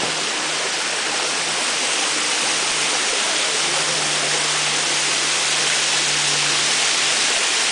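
Dark Hollow Falls, a cascade running at low flow after a drought, giving a steady hiss of falling water that grows slightly louder about two seconds in.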